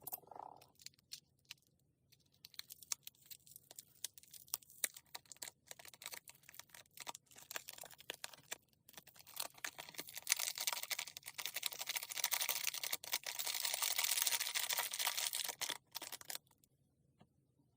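Slime being handled: sticky clicks and small pops as it is squeezed and poked. About ten seconds in these turn into a dense, loud crackling that stops suddenly near the end.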